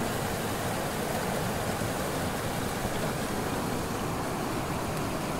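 Shallow mountain river rushing over boulders and stones, a steady, even rush of water.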